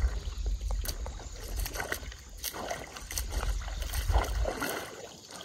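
Shallow river water trickling and sloshing, with scattered light splashes, over a low rumble that stops about four and a half seconds in.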